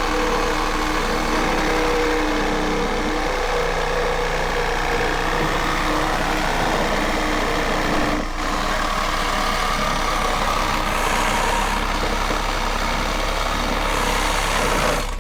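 A heavy vehicle engine running steadily, with a short break about eight seconds in.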